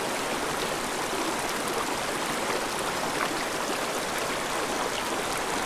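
Small rocky mountain stream running: a steady, even rush of flowing water.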